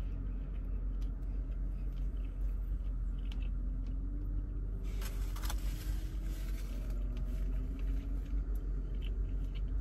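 Steady low rumble inside a parked car's cabin, with quiet chewing and a couple of faint clicks about halfway through.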